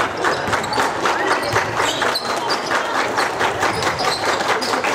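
Basketball game in play in a gym: a basketball bouncing on the court in many sharp knocks over a steady background of spectators chattering.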